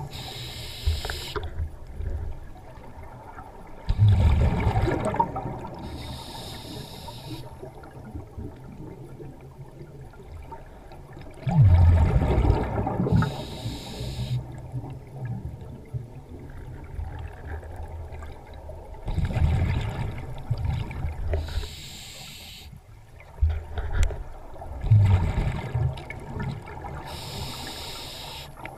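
Scuba diver breathing through a regulator underwater: a short hissing inhale, then a few seconds later a louder low rush of exhaled bubbles, the cycle repeating about every seven seconds.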